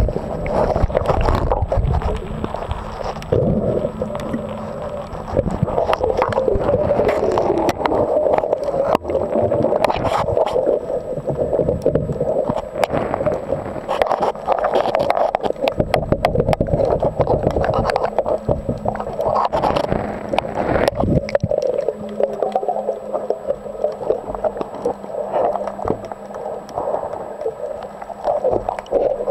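Muffled underwater sound through a diver's camera housing: bubbling and gurgling from the diver's breathing, swelling and fading every few seconds, with scattered clicks and a faint steady hum.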